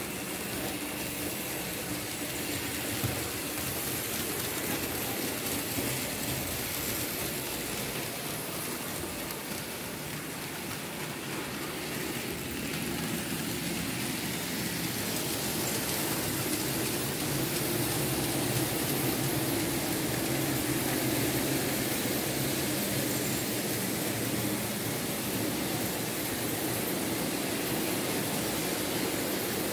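Märklin H0 model BR 23 steam locomotive running on the track, pulling freight cars: its small electric motor hums and its wheels roll on the rails in a steady whirr that grows a little louder about halfway through.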